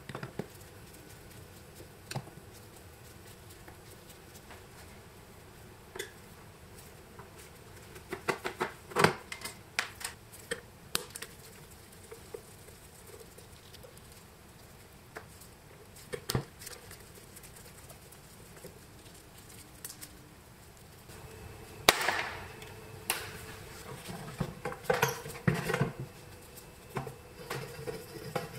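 Scattered small clicks, taps and scrapes of metal telephone parts and a screwdriver being handled while a vintage crank telephone is dismantled, with a busier run of knocks and rattles in the last few seconds.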